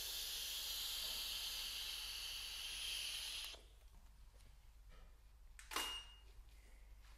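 A long, steady breathy hiss of vape vapour being blown slowly out of the mouth, stopping about three and a half seconds in. About two seconds later comes a short beep and a sharp click, the loudest sound here, typical of a DSLR firing.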